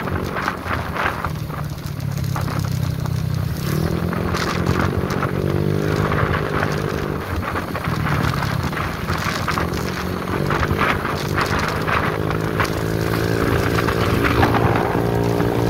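Motorcycle engine running at road speed, its pitch rising and easing off as the throttle changes, with wind buffeting the microphone.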